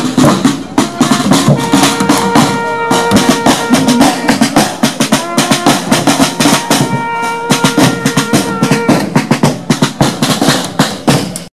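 Marching drums beaten fast in a steady street-band rhythm, with snare rolls. A steady held note sounds over them twice, about two seconds in and again about seven seconds in. The drumming stops abruptly just before the end.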